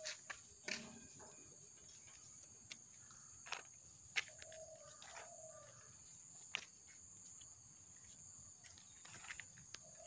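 Faint outdoor background with a few light clicks and taps as a rice seedling mat is handled and laid onto the galvanized steel tray of a manual paddy transplanter, and a few short faint animal calls.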